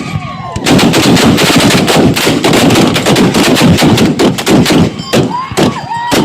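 A rapid volley of gunshots from many guns firing together, the shots overlapping into a dense crackle for several seconds, then thinning to single spaced shots near the end.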